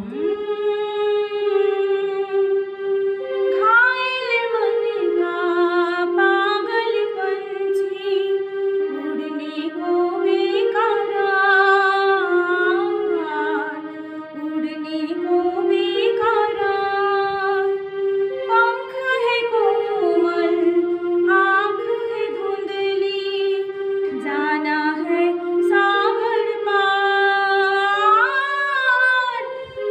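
A woman singing solo: a slow melody of long held notes with vibrato, gliding between pitches.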